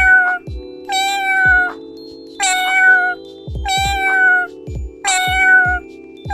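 Domestic cat meowing over and over, about five alike, slightly falling meows at an even pace. Background music with a steady low chord and a regular beat plays underneath.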